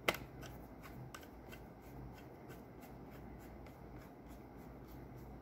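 Screwdriver tightening the screws of a laptop's CPU heatsink: a sharp click at the start, then a quick, even run of faint ticks, about five a second.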